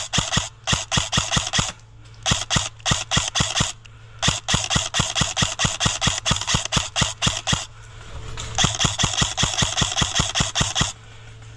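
Airsoft gun firing four long strings of rapid shots, about seven a second, with short pauses between the strings.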